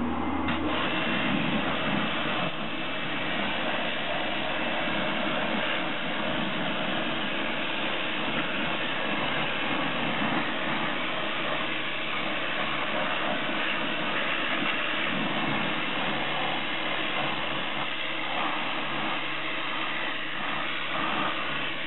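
Pressure washer running steadily, its jet of water spraying onto a car's alloy wheel and tyre to rinse it.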